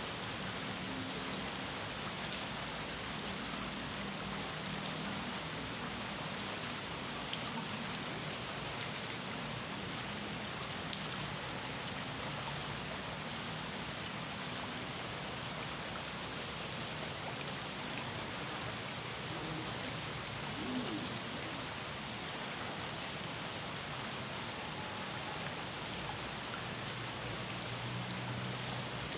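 Steady rain falling on a pond's surface, an even hiss with a few sharper drop ticks now and then.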